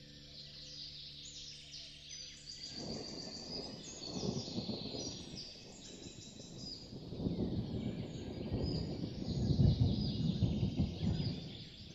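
Birds chirping and twittering throughout, as in a nature soundscape. A low rushing rumble swells and ebbs from about three seconds in and is loudest near the end. Held ambient-music tones drop out about three seconds in, and everything cuts off suddenly at the end.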